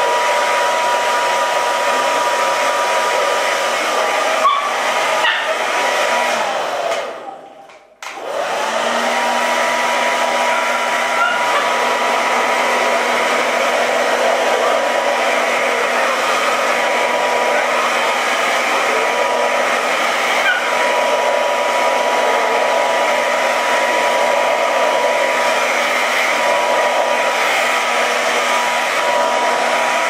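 Handheld hair dryer blowing steadily, a rush of air with a steady whining tone. About seven seconds in it winds down to nothing, then a second later starts again, its whine rising as the motor spins up before settling back to a steady run.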